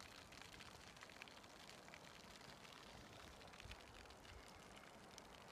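Near silence: a faint even hiss with scattered soft ticks.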